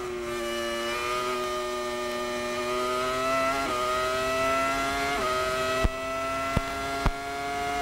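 Prost-Acer AP04's Acer-badged Ferrari 3.0-litre V10 heard from onboard, accelerating in the high gears. The engine pitch climbs slowly and drops sharply at two upshifts, about halfway through and again a second and a half later, and three sharp clicks come near the end.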